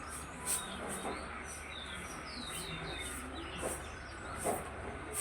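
Birds chirping: a few short, quick, falling chirps in the middle, over a steady low background hum and a regular high-pitched pulsing call repeating about two to three times a second.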